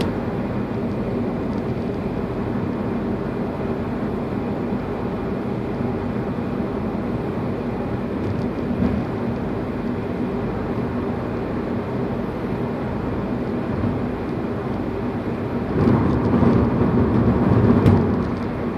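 Steady car engine and road noise from inside a moving car in traffic, swelling louder for about two seconds near the end.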